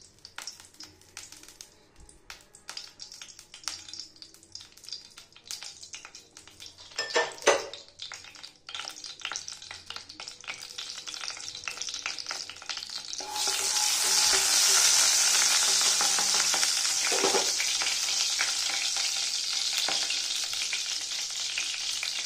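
Mustard oil heating in a hot non-stick kadai, crackling and spitting at first, with a brief knock about seven seconds in. About thirteen seconds in the sizzle suddenly grows into a loud steady hiss.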